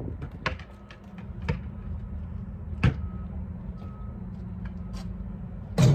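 A basketball bouncing on asphalt a few separate times, with a louder knock near the end, over a steady low hum.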